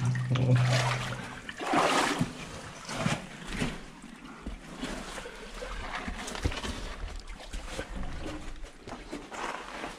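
People wading through water in a flooded mine tunnel, their steps splashing and sloshing. The loudest splashes come in the first two seconds, then softer irregular sloshing continues.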